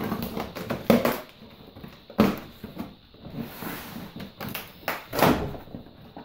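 Knife slicing through packing tape on a cardboard box, with cardboard scraping and rustling as the flaps are worked open, in irregular rasping strokes.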